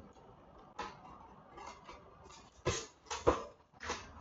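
Packing tape being pulled off a foam shipping box: several short, sharp rips and handling noises, the loudest about three seconds in.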